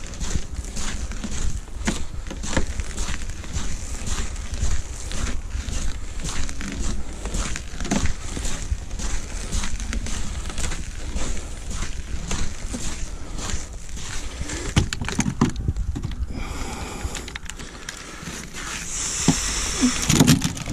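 Footsteps on a frosted wooden jetty: irregular knocks and crunches of boots on the boards, with tackle rattling and a steady low rumble on the microphone. Near the end the steps stop and fishing gear is handled at the rod pod.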